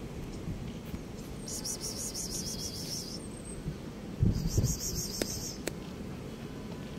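An insect's high, pulsing trill sounds twice, each burst lasting about a second and a half: the first starts about a second and a half in, the second just after four seconds. Low thumps, the loudest sound here, come at the start of the second burst, over a steady low outdoor background.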